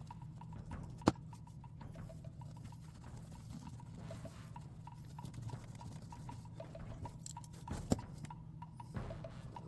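Small taps and clicks from handling a die-cast toy car and its packaging on a work surface, with two sharp snaps, one about a second in and one near the end, over a low steady hum.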